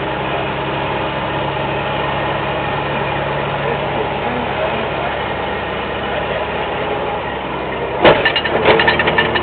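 Toyota FJ62 Land Cruiser engine running steadily at low revs while crawling a rock obstacle. About eight seconds in, a loud knock followed by a quick run of clattering knocks.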